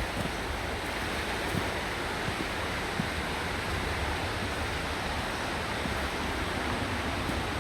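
Steady rushing of running water in a rainforest creek, an even hiss with a low rumble under it, with a few faint small ticks.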